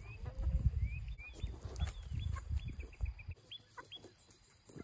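Chickens calling in a string of short, high, rising notes, with a heavy low rumble underneath for the first three seconds or so.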